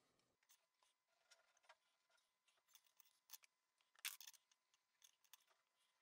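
Faint handling sounds of a steel ruler and a white sheet on a desk: scattered light clicks and short rustles, with a brief louder rustle about four seconds in.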